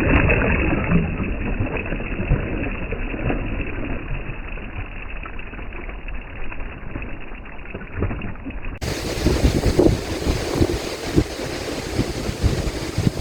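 Wind buffeting the microphone over waves lapping on the lake, a steady rushing with low gusts. About two-thirds of the way in, the sound turns brighter and the gusts come stronger.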